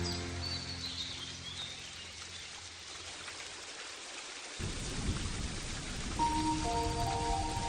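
Soft music and chirping birds fade out. About halfway through, the steady noise of rain with thunder rumbling starts abruptly, and held music notes come back in over it near the end.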